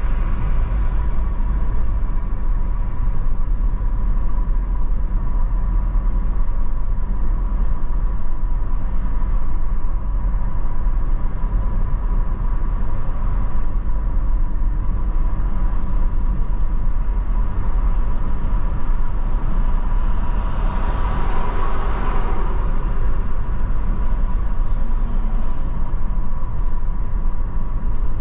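A moving car's steady road and engine rumble, heavy in the low end, with a constant thin whine at one pitch over it. About three-quarters of the way through, a hiss swells briefly and fades.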